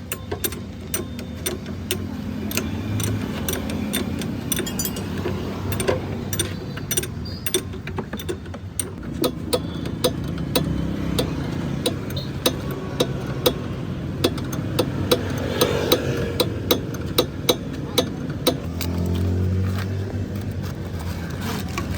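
Repeated sharp metal knocks and taps from hand tools working on a car's shock absorber, coming irregularly about one or two a second and closer together in the middle stretch, over a steady low rumble.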